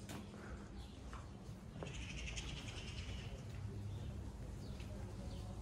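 A small bird twittering faintly, a burst of rapid chirps lasting about a second and a half from about two seconds in, over a low steady hum.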